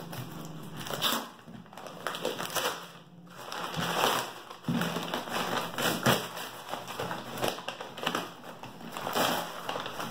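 Brown kraft paper wrapping being torn and pulled off a cardboard box, an irregular series of ripping and crinkling rustles.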